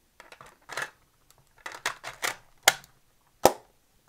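Plastic compact cassette being handled and fitted into a Sony TC-40 cassette recorder: short scraping rustles, then two sharp clicks near the end, the last one the loudest, as the cassette door is snapped shut.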